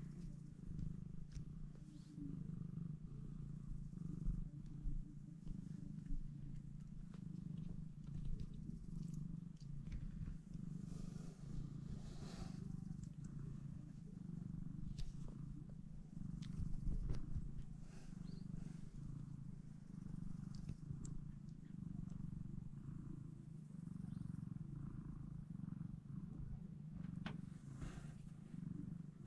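A nursing mother cat purring steadily and close up, with faint rustles and small ticks now and then.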